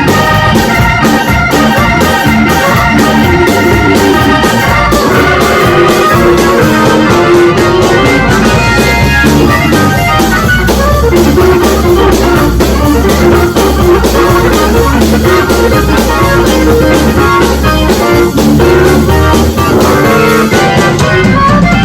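Instrumental music led by organ and keyboards over a steady beat.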